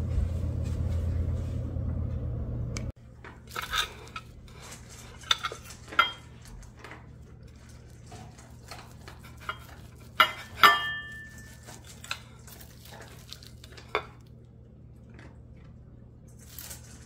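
A steady low hum that stops abruptly about three seconds in, then a steel knife and fork clinking and scraping on a ceramic plate while cutting steak, with a few sharp clinks, one ringing briefly.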